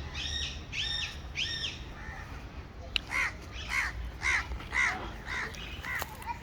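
Crows cawing: a string of short, arched calls, about two a second, in two bouts, one fading out about two seconds in and another starting about three seconds in.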